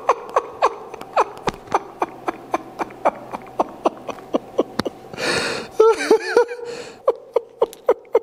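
A man laughing helplessly: a long run of short, squeaky laughing gasps, about three a second, with a breathy exhale and a wavering, high-pitched laugh about five to six seconds in.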